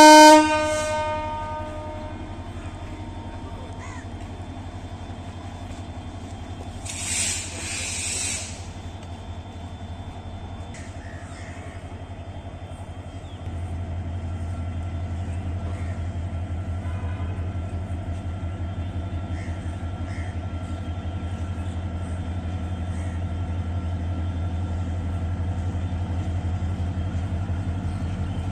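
EMD GT38AC diesel-electric locomotive approaching: the last of its horn blast dies away at the start, then a steady low engine hum that grows louder from about halfway as it draws nearer. A brief hiss sounds about a quarter of the way in.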